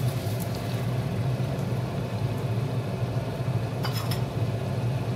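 Steady low mechanical hum under a metal spoon turning cooked macaroni in a pot, with a short metallic clink about four seconds in.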